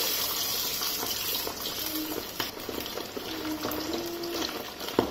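Chicken pieces in a cornflour and egg-white marinade deep-frying in hot oil in an iron kadhai: steady sizzling with scattered crackles and pops.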